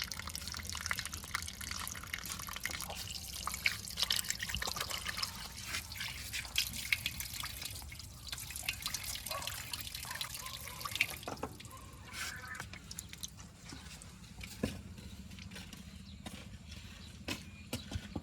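Wet mud dripping and splattering: many small irregular clicks and crackles, busiest in the first half, over a faint steady low engine hum.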